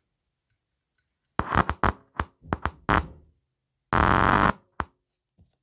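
A bare speaker driver from a Sony SS-DX3 speaker giving a quick run of sharp pops, then a short noisy crackling burst and one last pop.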